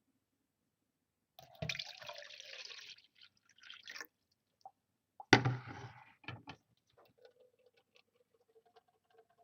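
Water poured into a Brita-type filter pitcher for about a second and a half, then a sharp knock of the pitcher about five seconds in. After that come faint, sparse drips of water filtering through the cartridge.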